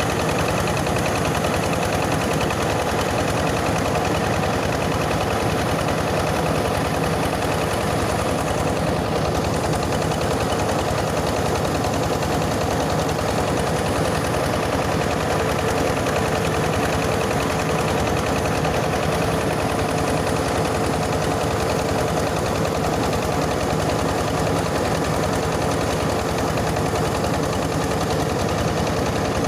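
Yanmar diesel engine running steadily under load, driving a mobile rice huller as it mills grain; an even, unbroken machine din.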